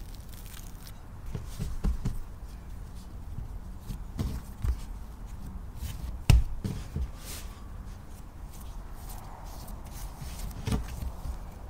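Hands tipping sourdough dough out of a bowl onto a floured wooden table and shaping it into a ball: irregular soft thumps and knocks against the table, the loudest about six seconds in.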